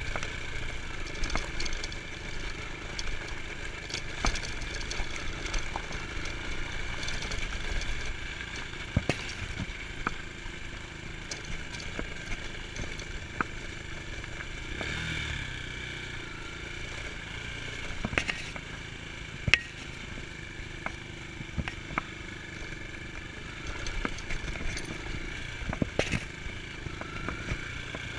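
Dirt bike engine running as the bike rides along a rough dirt road, with scattered sharp clattering knocks.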